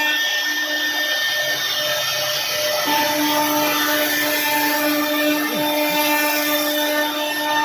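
CNC router spindle running with a steady whine over a hiss, the whine breaking off briefly about three seconds in and then carrying on.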